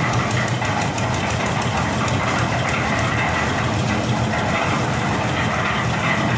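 Concrete mixer machine's engine running steadily.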